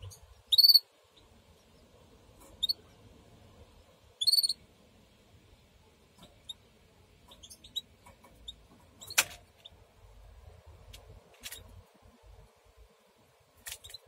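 Canary chicks in the nest giving short, sharp high-pitched squeaks: three loud ones in the first few seconds, then fainter peeps. A sharp click about nine seconds in and a few softer clicks near the end.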